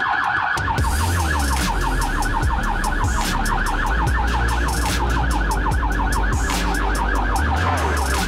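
Ambulance's electronic siren in fast yelp mode, a rapid rising-and-falling whoop repeating several times a second, with engine and road rumble underneath as heard from inside the cab.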